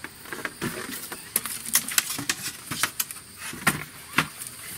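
A run of sharp, irregular clicks and taps as the lid of a folding camping shelf unit is handled and fitted on top of it.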